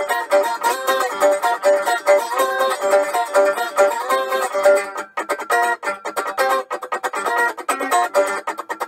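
Homemade round-bodied slide guitar played with a slide on the finger: quick plucked notes that run on steadily, with a brief break about five seconds in.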